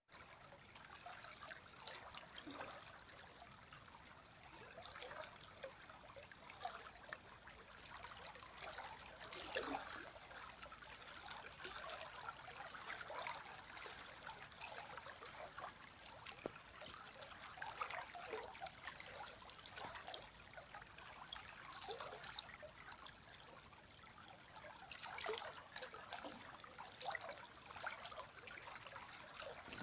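River water flowing and trickling over stones, a steady babble broken by small splashes and gurgles.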